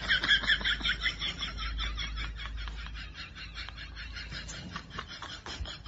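Rapid, high-pitched giggling, strongest at the start and fading away.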